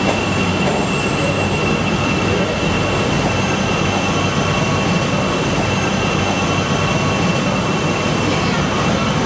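CTA "L" elevated train running at the platform: a steady rumble with a constant high-pitched whine over it.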